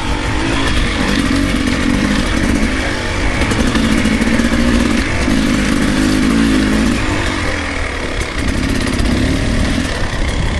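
Beta enduro motorcycle engine running, its note rising and falling with the throttle.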